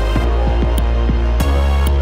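Electronic music with a deep sustained bass and a quick pulsing beat of about six pulses a second; the bass note changes about one and a half seconds in.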